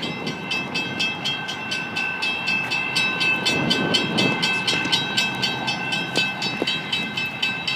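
Railroad grade-crossing bells ringing continuously with rapid, even strikes several times a second. A steady ring carries on between the strikes. A faint low rumble runs underneath.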